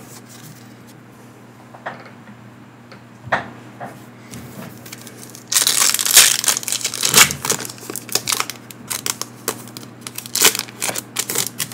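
Foil Pokémon booster pack wrapper being torn open and crinkled: a few soft clicks at first, then about five and a half seconds in a sudden burst of loud crinkling and tearing, followed by many sharp crackles as the wrapper is handled.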